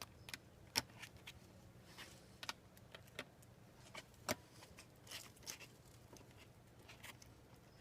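Faint, scattered metallic clicks and clinks of hand tools and bolts being handled while brackets are bolted onto a motorcycle, with a few short scrapes.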